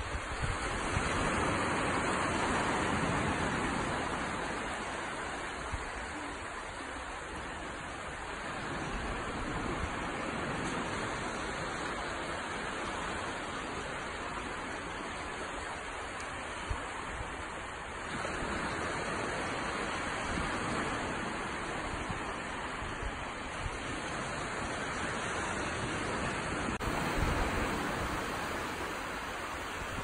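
Gentle surf washing up on a sandy beach, the wash swelling and easing every several seconds as each small wave runs in and draws back.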